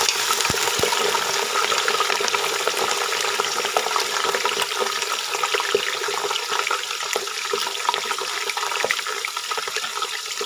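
Raw mutton pieces frying in hot oil in a steel pot: a steady, loud sizzle full of fine crackles, easing off a little near the end as the meat begins to sear.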